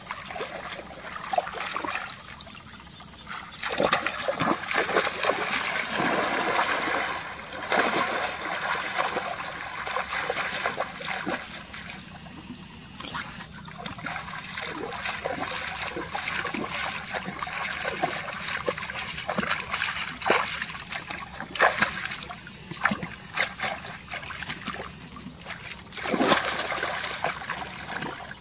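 Water splashing and trickling in uneven bursts, from someone working in shallow water while fishing.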